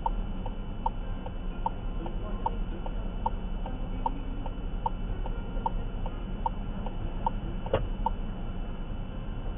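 A car's turn-signal indicator ticking steadily inside the cabin, a tick and a softer tock about every 0.8 s, over a low steady hum. One sharper knock about eight seconds in.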